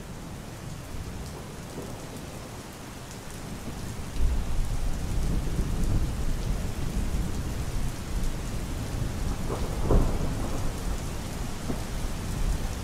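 Steady rain, with a low rumble of thunder setting in about four seconds in and swelling to its loudest near ten seconds.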